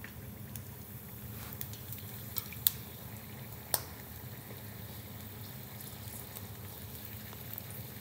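Pork rind deep-frying in hot oil, bubbling and sizzling steadily as it puffs up, with a few sharp crackles about two to four seconds in.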